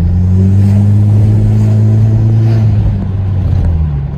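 2011 Hyundai Sonata 2.0T's turbocharged four-cylinder engine running through a muffler-deleted exhaust: a loud, steady drone under throttle that drops in pitch about three seconds in as the driver eases off.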